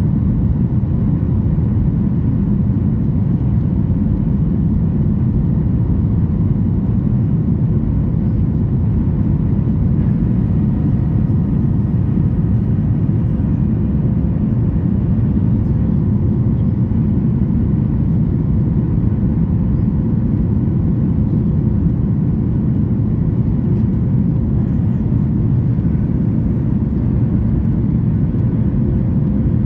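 Steady low rumble inside the cabin of a Boeing 737 MAX 8 in climb: its CFM LEAP-1B engines and airflow heard from a seat over the wing, with faint steady tones above the rumble.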